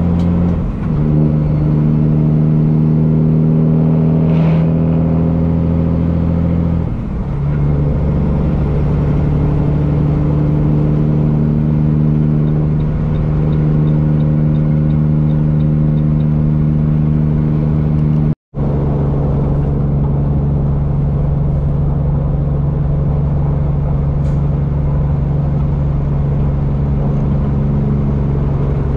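Straight-piped Cummins diesel of a Peterbilt 379 semi running steadily at highway speed, a deep even exhaust drone. The note shifts to a new pitch about a second in and again about seven seconds in, and the sound cuts out for an instant a little past halfway before the drone resumes.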